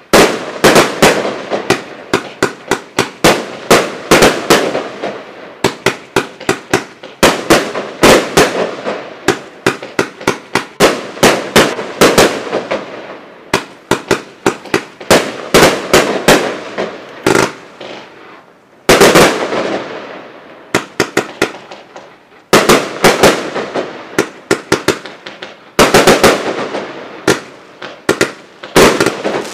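A 138-shot consumer fireworks cake of 25 mm and 30 mm tubes firing in rapid volleys: sharp reports several a second, each volley decaying before the next. There are two short lulls about two-thirds of the way through.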